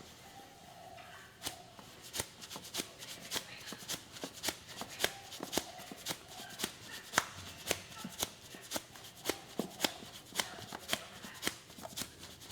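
Quick, even series of sharp slaps from hands striking the body in percussive massage, about three to four strikes a second, picking up about two seconds in.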